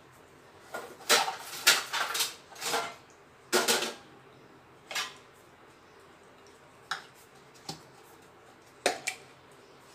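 Kitchen dishes and utensils clattering: a cluster of sharp knocks and rattles in the first four seconds, then a few single knocks spaced a second or two apart.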